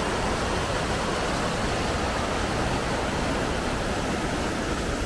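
River water pouring over a small stone weir, a steady loud rush of white water.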